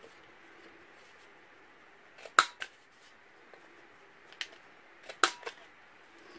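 Hand-held corner rounder punch snapping through the corners of a sheet of patterned paper: several sharp clicks, two of them much louder, a little under three seconds apart.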